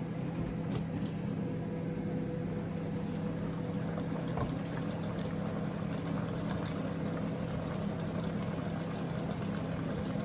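Water being poured into a cooking pot of banga soup, over a steady low hum.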